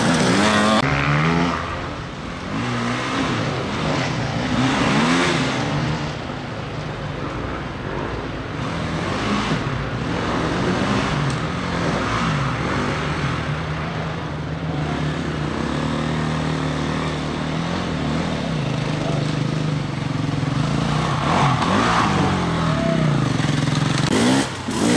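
Several enduro dirt bike engines revving up and down, with the pitch rising and falling again and again as the bikes are worked over rough ground.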